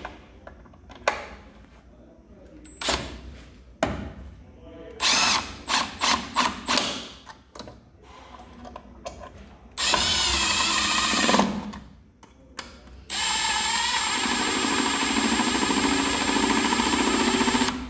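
Handheld power drill driving screws. The first run lasts about a second and a half and falls in pitch as it slows to a stop. A longer steady run of about four and a half seconds follows near the end. Short clicks and handling knocks come before the drill runs.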